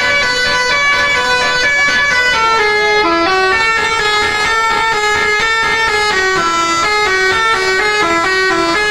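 Bus telolet horn (basuri type), a set of musical air horns playing a loud, continuous tune. Several notes sound at once and step up and down every fraction of a second.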